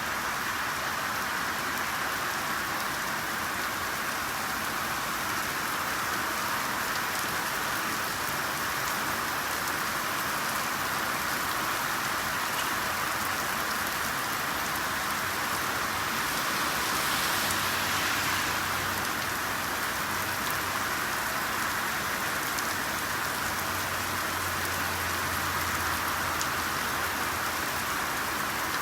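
Steady rainfall, an even hiss of many drops on a surface, swelling slightly a little past the middle.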